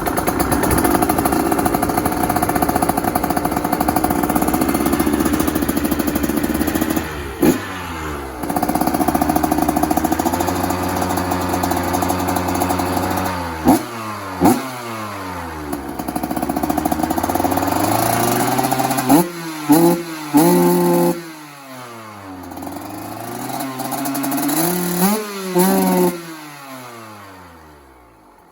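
Single-cylinder two-stroke engine of a 2023 KTM 125 SX with a new FMF full exhaust system (expansion pipe and silencer), running steadily as it warms up and then blipped repeatedly. Each blip is a quick rise in revs that falls straight back, once about seven seconds in, twice around fourteen seconds, and in a cluster near the end, with the sound dropping away just before the end.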